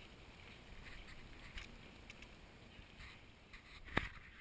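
Wind rumbling on the camera microphone, with a few faint clicks and one sharp knock about four seconds in.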